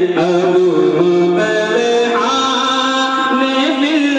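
A naat, an Urdu devotional hymn praising the Prophet, sung in a melodic voice with long held and ornamented notes, amplified over a sound system.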